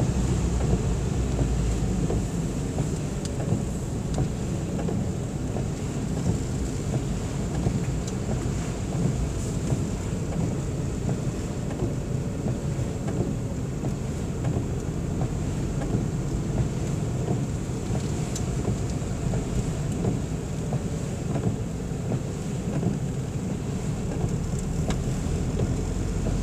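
Car driving on a wet road in rain, heard inside the cabin: a steady low rumble of engine and tyres with rain noise over it.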